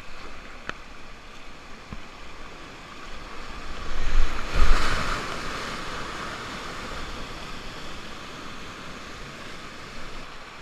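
Whitewater rapids rushing around a kayak, close to the camera, with water and wind buffeting the microphone. The rush swells loudest about four to five seconds in as the boat goes down the foaming rapid.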